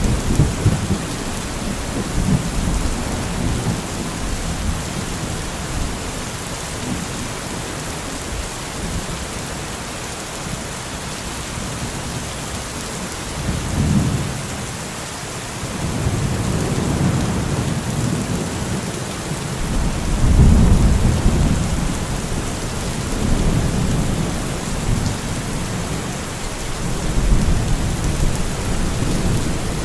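Steady rain with rolling thunder: low rumbles swell and fade several times over the rain's hiss, the strongest a little past two-thirds of the way through.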